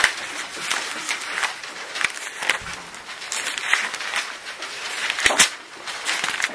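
Thin paper pages rustling and crinkling as a Bible is leafed through to find a passage in Matthew chapter 12, with irregular crackles and a few louder page flips about two and a half and five seconds in.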